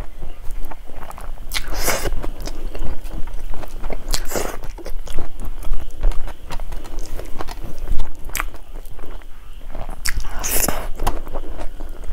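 Close-miked chewing of a mouthful of rice and fried fish curry eaten by hand, with wet mouth clicks throughout and a few sharper, louder bites scattered through.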